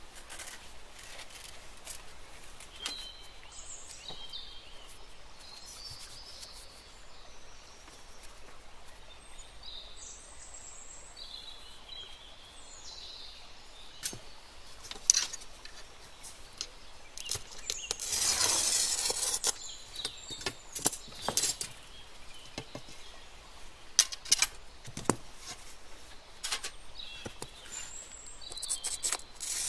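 Small workbench handling sounds of a paper pattern and a sheet of stained glass being traced with a marker: light clicks and taps, short high squeaks, and a brief rustling burst about two-thirds of the way through.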